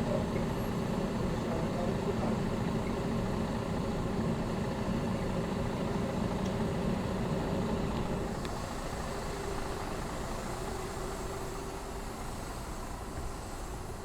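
Busy city street traffic: a steady rumble of vehicle engines and tyres, with a low idling hum that eases off about eight seconds in.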